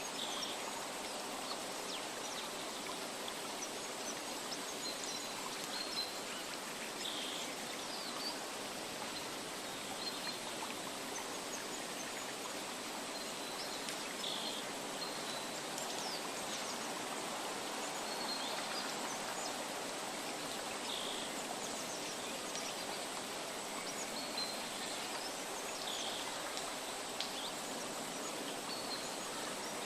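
Steady rushing water of a stream, an even noise that does not change, with short high chirps every couple of seconds.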